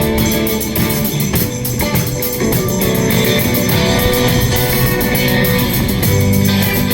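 Instrumental passage of a worship song: guitar-led music with a steady drum beat.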